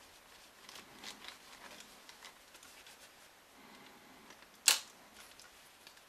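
Faint rubbing of a microfiber cloth over a Sony A6000 mirrorless camera body, with small handling clicks and one sharp, loud click about four and a half seconds in.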